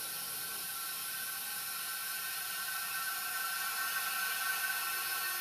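Air hissing steadily into the evacuated 32-inch flat-faced Panasonic CRT picture tube through its just-popped seal, the tube losing its vacuum. A thin whistle runs through the hiss, which grows a little louder in the second half.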